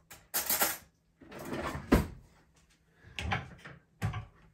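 Kitchen drawer being slid open and shut while a knife is fetched: a few short scraping, rattling bursts, with a sharp knock about two seconds in.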